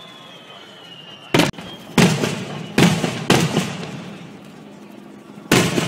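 Aerial fireworks shells bursting overhead: five sharp booms, four in quick succession from about a second and a half in, then one more near the end, each trailing off in a short echo.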